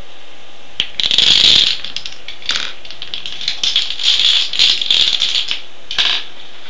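A chain of dominoes toppling: a fast clatter of small hard pieces, loudest about a second in, then going on in uneven runs and stopping about six seconds in.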